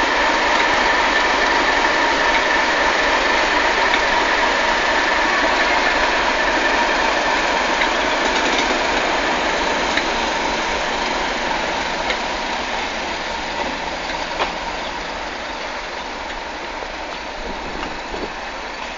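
Diesel locomotive hauling a train of coaches away, its engine running with a steady whine and slowly fading as it recedes. A few faint clicks of wheels over rail joints come in the second half.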